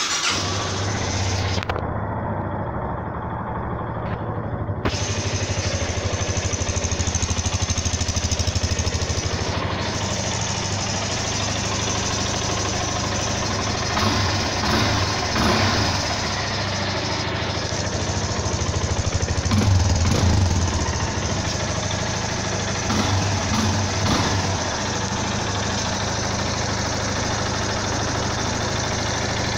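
Yamaha Fazer 250's single-cylinder engine idling, with a few brief rises in revs. It runs smooth with no tick-tock from the cam chain tensioner, which a mechanic has just adjusted.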